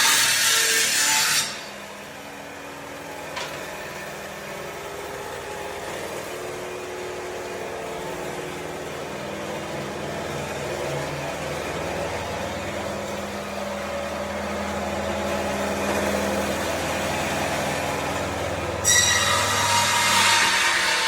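Floor sanding machine working a wooden parquet floor: a loud, high-pitched grinding for the first second and a half, a quieter steady motor running with held tones in between, and the loud grinding again near the end.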